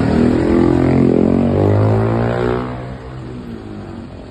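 Intercity bus engine passing by, its pitch falling as it goes past. It drops away and fades about three seconds in.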